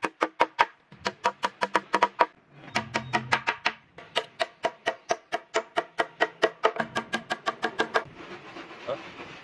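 Hand hammer striking steel nails, driving them into solid timber in quick, evenly spaced blows, about six a second, with a short ringing note on each strike. The hammering breaks off briefly about two and a half seconds in and stops about eight seconds in.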